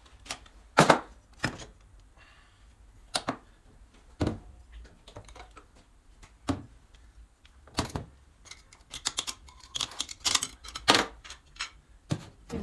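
Irregular metallic clicks and clinks of hand tools and loose parts being handled while a Mercedes 722.6 automatic transmission is taken apart, with a quick run of clicks near the end.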